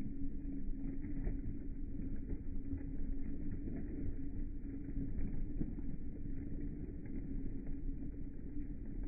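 Automatic washing machine running with a steady low rumble and an even motor hum.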